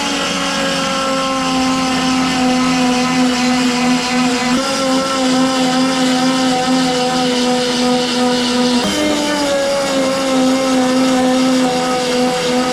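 A power tool runs continuously with a steady high whine, its pitch shifting slightly about four and a half and nine seconds in, as it cuts into the pickup's sheet-metal bedside.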